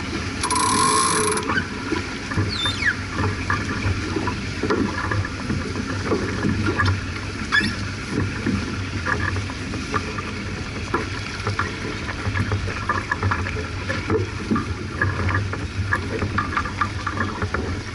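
On board a J/24 sailing keelboat under way: water rushing along the hull, with scattered knocks and clicks from the boat throughout. About half a second in there is a brief hiss with a whistle-like tone lasting about a second.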